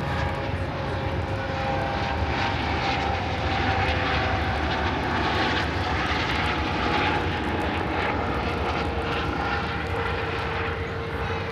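An aircraft passing over, its engine noise swelling to a peak about halfway through and then easing off, with a steady hum running beneath it.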